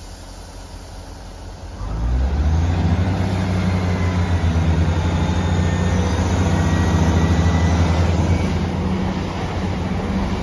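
Diesel train engines running, a steady low drone that swells loudly about two seconds in, as a ScotRail Class 170 Turbostar diesel multiple unit passes through the station at speed beside a Class 158 standing at the platform.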